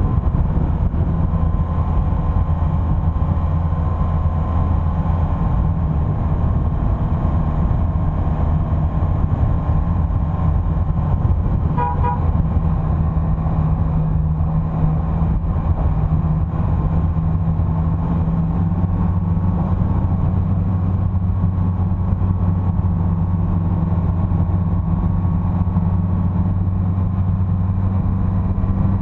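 Vehicle engine running steadily while driving, a low drone that shifts slightly in pitch about two-thirds of the way through. A short car-horn toot sounds once about twelve seconds in.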